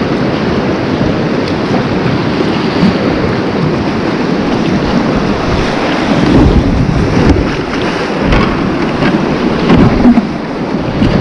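Rushing whitewater of a river rapid heard from a kayak's cockpit, a steady loud wash of moving water. From about six seconds in, as the kayak drops off a rock slab into the whitewater, it grows louder, with splashes and low thumps of water against the boat and microphone.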